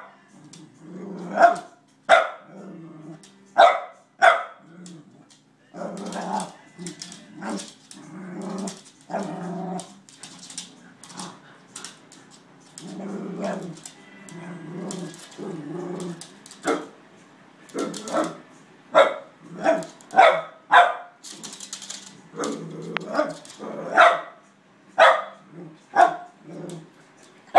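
A small dog barking and growling at a broom being waved at it: short sharp barks, coming in quicker runs near the end, with longer low growls in between during the middle.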